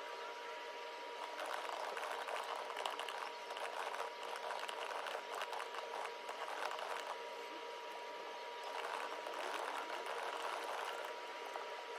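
Fast typing on a computer keyboard: a dense, rapid run of key clicks with a couple of brief pauses.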